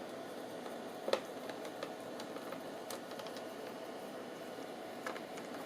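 A few faint, scattered clicks from a screwdriver and small screws being worked out of a laptop's plastic base, over a steady low hum.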